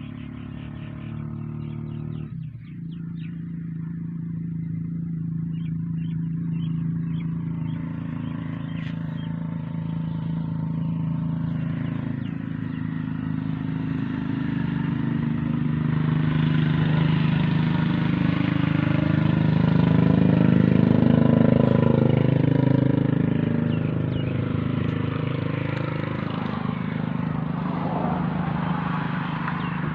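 Slow-speed 20 HP 'Kala' desi diesel oil engine running steadily, growing louder toward the middle and easing off near the end.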